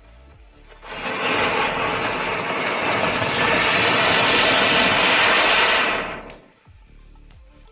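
A spark-spraying firework burning fiercely, with a loud rushing hiss that starts about a second in, holds steady for about five seconds and dies away quickly.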